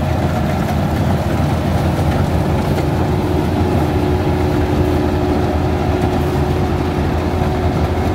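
Combine harvester running steadily: a continuous heavy engine drone with the machine's mechanical noise, unchanging throughout.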